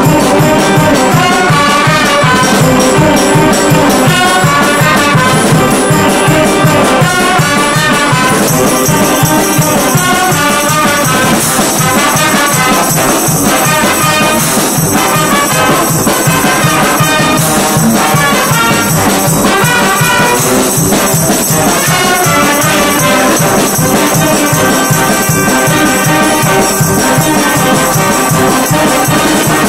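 Brass band of trumpets, sousaphones and saxophones playing a tune together with a steady beat. A bright high shimmer joins about eight seconds in.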